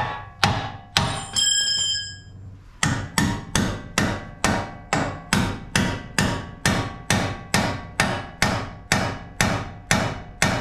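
Hammer blows on steel in a Hummer H3's front suspension, knocking the upper control arm loose from the knuckle. A few heavy strikes and a brief ringing clang, then a steady run of about three blows a second.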